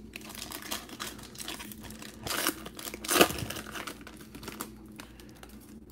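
Foil trading card pack being torn open by hand: the wrapper crinkling and ripping, loudest about three seconds in, then quieter handling near the end.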